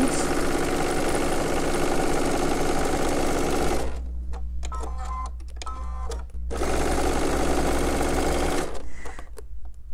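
Sewing machine stitching a seam through pieced quilt fabric in two runs, stopping for about two and a half seconds about four seconds in, then running again and stopping near the end.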